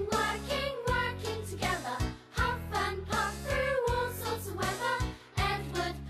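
Children's song: a singing voice carrying the melody over a band backing with a steady beat.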